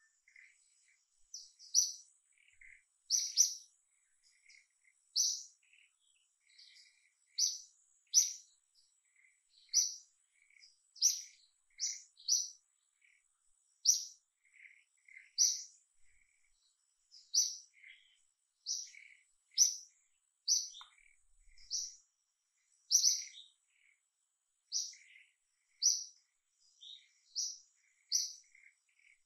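Birds chirping: short, sharp high notes repeated roughly once a second, with fainter, lower chirps between them and a faint steady high-pitched tone behind.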